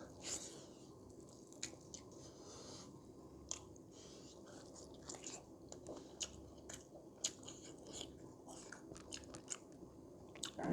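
A person chewing and biting food, with many small irregular mouth clicks.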